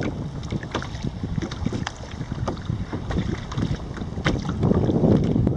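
Wind buffeting the microphone with a low rumble that swells near the end, over small splashes and slaps of choppy water against a sit-on-top kayak.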